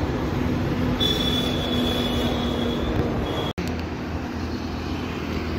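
Steady rumble and road noise of a moving vehicle, with a thin high squeal for about two seconds. The sound drops out for an instant a little past halfway.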